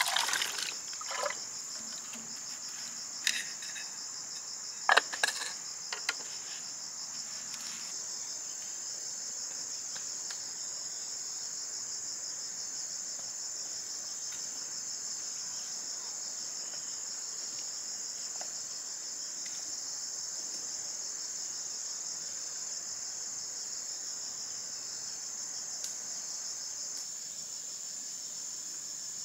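Steady, high-pitched chorus of insects, with a few sharp knocks in the first six seconds, the loudest about five seconds in.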